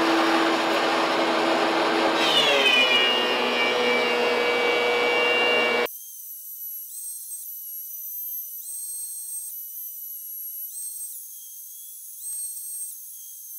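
DeWalt DW735 thickness planer with a Shelix helical cutterhead, running loudly with steady tones and a falling whine about two seconds in. About six seconds in, the low, full part of the sound cuts off abruptly. A much quieter, thin high whine is left, stepping up and down in pitch.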